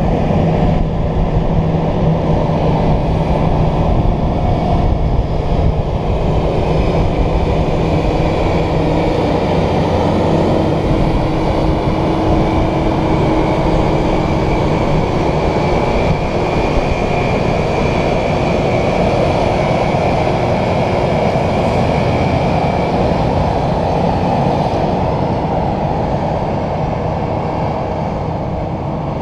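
Loram rail grinder train rolling past close by at a steady speed: its engines running loud and steady over the noise of the wheels on the rails, easing off slightly near the end as it moves away.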